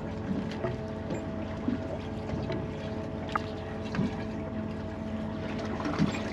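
A 150-horsepower outboard motor idling with a steady hum, with wind noise and a few light knocks on the boat.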